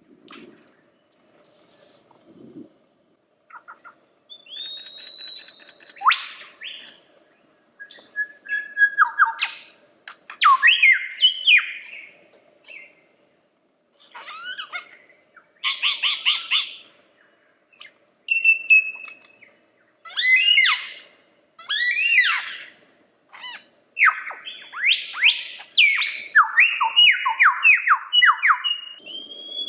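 Lyrebird singing a long, varied song: clear held whistles, sharp sweeping notes and fast runs of falling notes, broken by short pauses.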